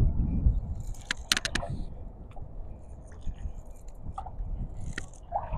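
Kayak paddle blades dipping into the water and splashing with the strokes, with a cluster of splashes and drips about a second in and another near the end, over a low rumble.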